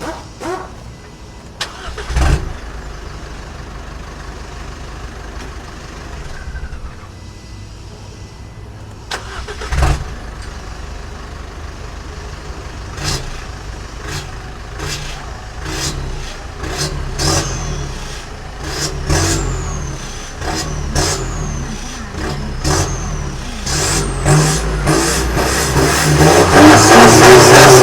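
Isuzu D-Max turbodiesel engine running through an aftermarket front exhaust pipe (header), idling with a couple of sharp blips, then revved again and again, louder and harder toward the end.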